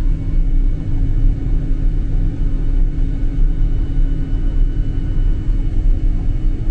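Combine harvester running steadily while harvesting soybeans: a constant low engine and machinery rumble with a faint steady whine above it.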